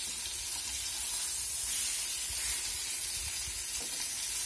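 Floured cube steaks sizzling in hot butter and oil in a skillet as they are turned over with tongs. The sizzle is steady and flares up briefly about two seconds in.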